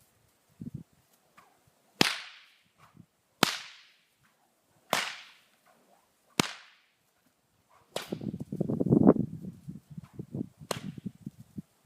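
Whip cracking in a steady rhythm: four sharp cracks about a second and a half apart, each trailing off in a short echo. Then two more cracks come amid about three seconds of low rumbling thuds.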